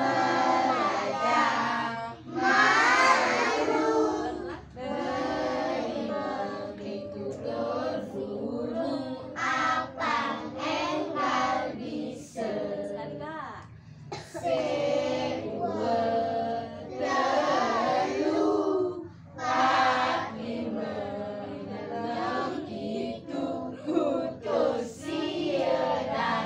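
A group of young children singing a song together, with short breaks between phrases.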